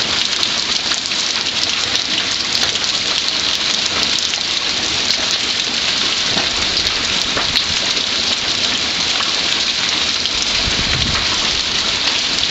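Hailstones pelting down onto a hail-covered garden and paving: a steady, dense hiss of countless small impacts. A brief low rumble comes near the end.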